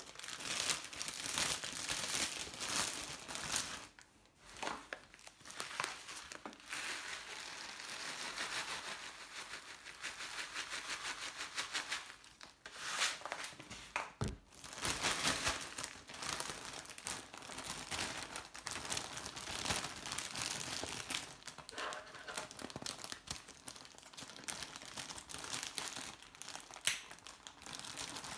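Clear plastic zip-top bag crinkling and rustling as it is handled, opened and filled with rolled oats.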